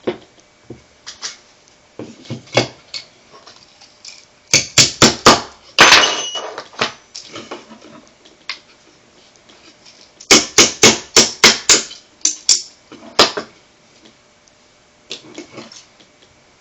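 Sharp metal taps on a pin punch, driving a pin out of a Beretta PX4 pistol frame. The taps come in two quick runs, about five and then about seven, with scattered lighter knocks between them.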